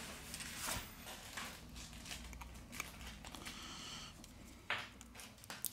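Quiet handling noise from a smartphone and a clear plastic sheet: brief rustles and scattered light clicks as the phone is picked up and a SIM eject pin is pushed into its side. There is a sharper click a little before five seconds and another near the end.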